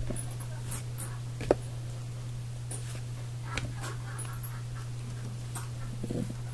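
Trading cards being handled and shuffled: scattered soft clicks and rustles, with one sharp click about a second and a half in, over a steady low hum.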